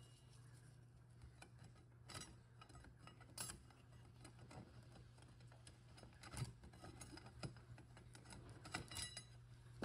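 Faint, scattered clicks and clinks of steel and friction clutch plates being set one by one into a Subaru 5EAT automatic transmission's direct clutch drum, over a low steady hum.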